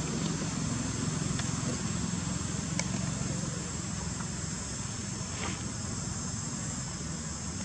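Steady high-pitched insect buzzing over a low background rumble, with a few faint ticks.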